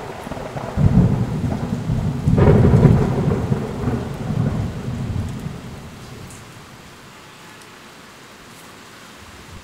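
Thunder over steady rain: a low rumble starts about a second in, a sharper crack comes at about two and a half seconds, and the thunder rolls away over the next few seconds, leaving only the steady hiss of falling rain.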